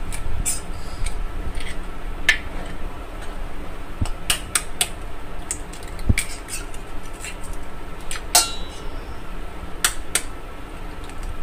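Eggs being cracked open with a table knife over a glass bowl: sharp taps of the blade on the shells and light clinks of knife and bowl, coming in scattered clusters.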